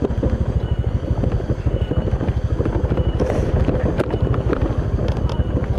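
Motorcycle engine running steadily under way with a fast, even low pulse, and a few sharp clicks about three to five seconds in.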